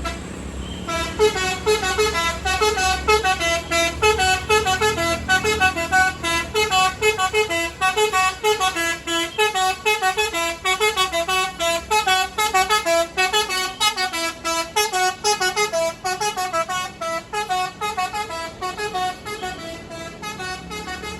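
Bus 'telolet' basuri musical horn playing a fast melody of short notes, about four a second, starting about a second in.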